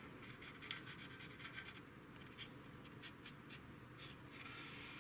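Cotton swab rubbing over the painted plastic wing of a scale model aircraft in short, faint, scratchy strokes, wiping off excess panel-line wash.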